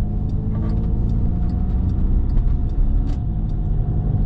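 Steady low rumble of a vehicle in motion, with a couple of faint steady tones and light ticks over it.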